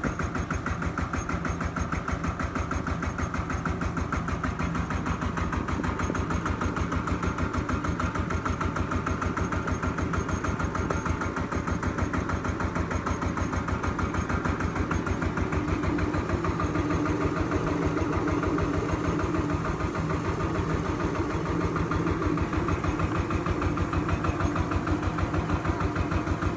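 Single-cylinder horizontal diesel engine chugging steadily with an even pulse as it belt-drives a small rice huller that is milling paddy. It grows a little louder about two-thirds of the way in.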